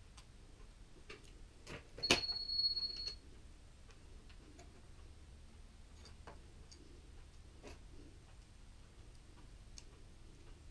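Scattered faint clicks and taps of small plastic parts and screws being handled during kit assembly. About two seconds in there is a louder clatter with a brief, steady high-pitched tone lasting about a second.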